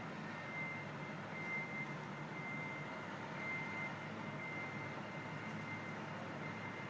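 Motion alarm of a slow-moving motorized lift beeping: a single high-pitched tone, about one beep a second, each roughly half a second long, over a steady low hum and city background.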